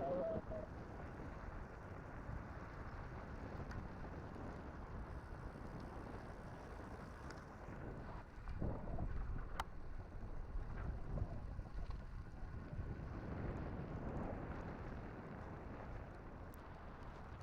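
Low wind rumble buffeting the microphone of a camera on a moving road bike, with a few faint clicks.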